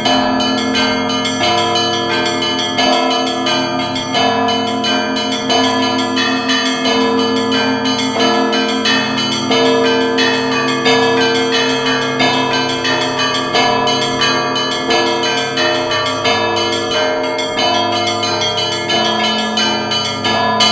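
Peal of several church bells ringing continuously, one stroke after another, their tones overlapping as each rings on.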